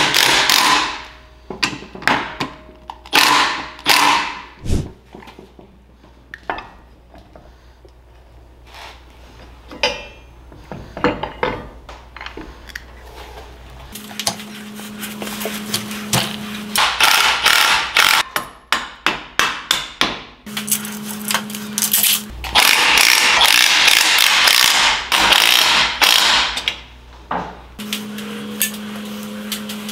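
Cordless 12-volt Milwaukee right-angle power tool running in short bursts, driving the case bolts of a reassembled aluminium Polaris transmission, with clinks and knocks of tools and metal parts. Later come longer bursts of power-tool work over a steady low hum.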